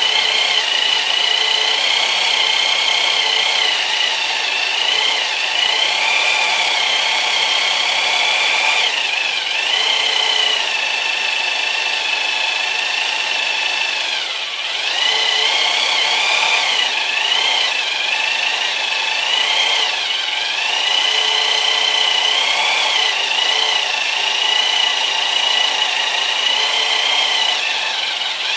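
Corded electric drill driving a 1-3/4-inch Lenox hole saw, cutting to enlarge the coupler hole in the CNC router's aluminium frame plate. The motor whine is steady, wavering in pitch as the load on the saw changes, with a couple of brief dips as the cut bogs and recovers.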